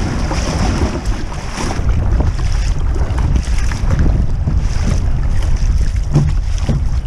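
Wind rumbling on the microphone over rough sea, with choppy waves splashing against a plastic kayak hull. A short low thump about six seconds in.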